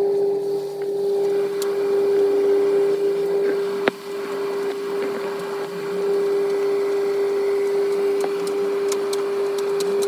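Beko condenser tumble dryer running, its motor and drum giving a steady mechanical hum, played back at four times speed. A single sharp click about four seconds in.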